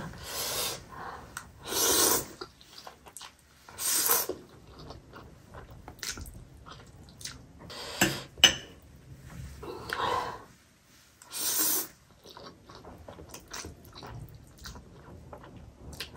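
Close-miked slurping of spicy Buldak instant noodles: several long slurps a few seconds apart, with quieter chewing between them. A couple of sharp clicks come about halfway, from the fork against the plate.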